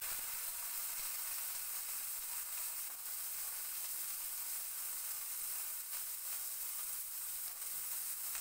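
Whole green grapes sizzling steadily in hot vegetable oil in a non-stick kadai, with dried red chillies and panch phoron. It is the fresh steady sizzle of wet fruit just added to the hot oil.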